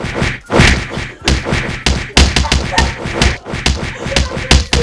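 A rapid, irregular run of loud thumps and knocks, several a second, with faint voices between them.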